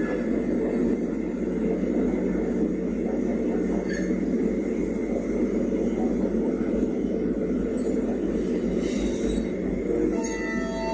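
Steady heavy running noise of a large mining machine, heard from its own deck as it travels. A few thin steady tones join in near the end.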